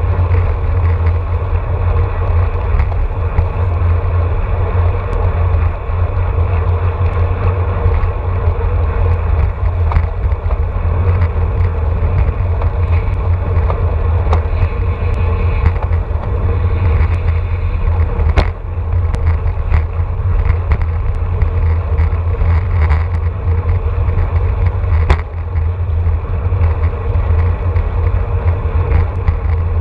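Wind buffeting the microphone of a handlebar-mounted camera on a road bike riding at about 27–28 mph in a bunch, a loud steady rumble with road and tyre noise. A few sharp clicks or knocks from the bike are heard, about ten seconds in, near eighteen seconds and near twenty-five seconds.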